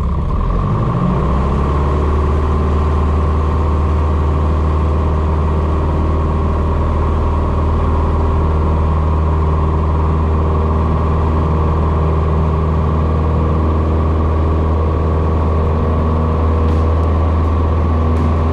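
Single-engine propeller airplane's piston engine heard from inside the cabin, going to full power for the takeoff roll. It is a loud, steady drone that rises in pitch over the first second or two as the throttle comes in, then holds.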